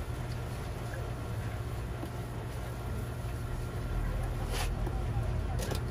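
Steady low rumble of street background noise, with a few short clicks near the end.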